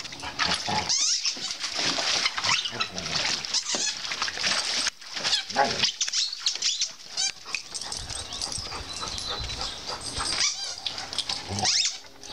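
Large dog splashing in a shallow plastic kiddie pool, its legs stamping and pawing so the water sloshes and slaps in irregular bursts.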